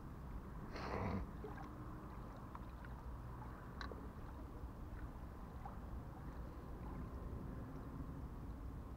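Steady wash of small waves lapping at a lakeshore under a low wind rumble on the microphone, with a short rustle about a second in and a few faint clicks.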